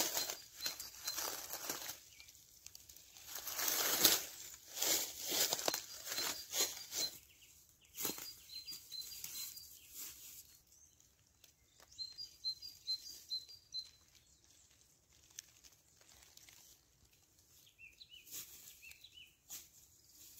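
Dry leaf litter rustling and crackling in bursts as wild greens are picked from the forest floor, loudest in the first half. A small bird chirps in short quick runs several times.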